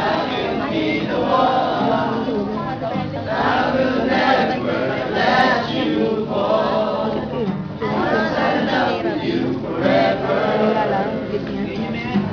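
A group of young men singing a song together, accompanied by an acoustic guitar.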